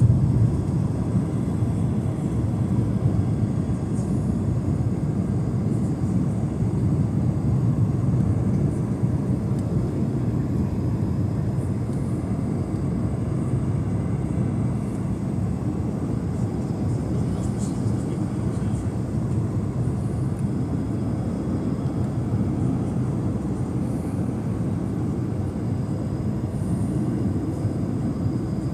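Steady low rumble of cabin noise inside an Airbus A220 in flight, the mix of airflow over the fuselage and its Pratt & Whitney PW1500G geared turbofan engines heard from a window seat beside the wing, as the airliner descends toward landing.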